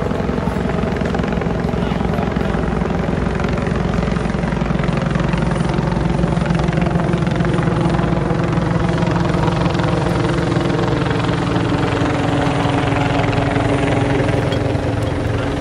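Rescue helicopter hovering close by: a loud, steady rotor chop with an engine hum underneath.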